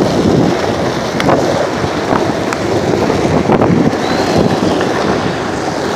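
Wind buffeting a phone's microphone while it moves along with skateboarders on an asphalt road: a steady rough rumble with a few sharp clicks.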